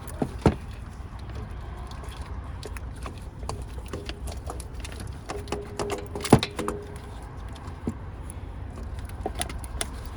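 Scattered metallic clinks and knocks of a replacement starter motor being worked up into its mounting against the engine and transmission, with sharper knocks about half a second in and about six seconds in, over a low steady hum.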